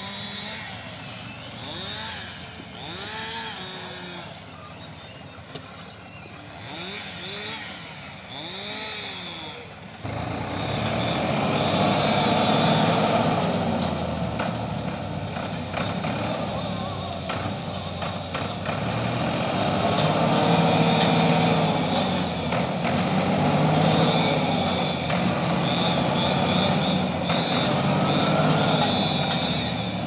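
Farm tractor's diesel engine working, its revs rising and falling again and again. It is quieter for the first third, then after a sudden jump much louder and closer.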